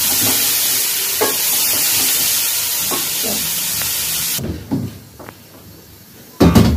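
Potatoes and capsicum frying in masala in a steel pot, with a steady sizzle while a wooden spoon scrapes and knocks against the pot. The sizzle cuts off abruptly about four seconds in, and a loud clatter comes near the end.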